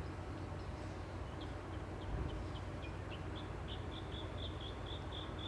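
A small animal's short, high chirps, repeating faster and faster from about a second in until they come about four times a second. A steady low background noise runs underneath.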